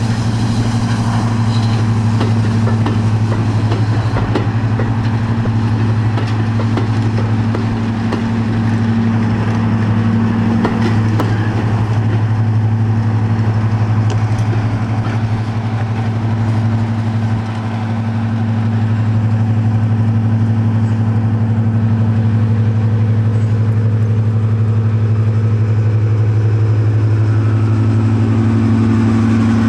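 British Rail Class 55 Deltic diesel locomotive 55019 with its twin Napier Deltic two-stroke engines running, a steady deep drone as it moves slowly along the line, growing slightly louder in the second half as it draws alongside.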